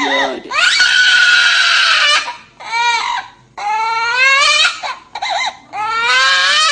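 Parrot mimicking a human baby's crying: a run of loud wailing cries, the long ones rising in pitch, broken by short breaths-like gaps.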